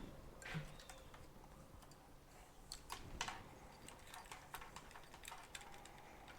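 Faint, scattered light clicks and taps of hand work on small motorcycle parts during disassembly.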